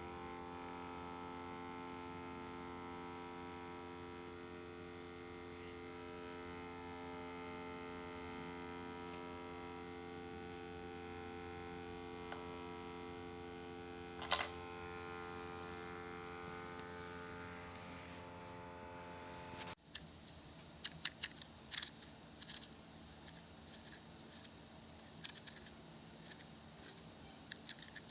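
A homemade Arduino CNC engraving machine runs with a steady electric motor hum. The hum cuts off abruptly about twenty seconds in, and irregular sharp clicks and crackles follow.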